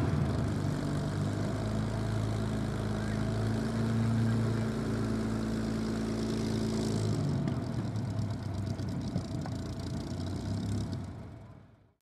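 Rolls-Royce Merlin V12 engine of a parked WWII fighter idling on the ground, a steady low propeller-engine drone that fades out at the very end.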